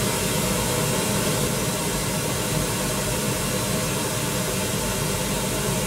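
Pink noise test signal played through a studio monitor speaker, a steady, even hiss, used to calibrate the monitor's level to about 75 dB SPL at the listening position.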